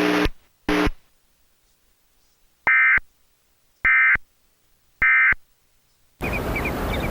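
Three short, identical bursts of Emergency Alert System digital data tones, about a second apart, from a Trilithic EAS encoder: the end-of-message (EOM) code that closes the alert. Before them a low steady tone cuts off and blips once more, and after them a steady rushing noise begins about six seconds in.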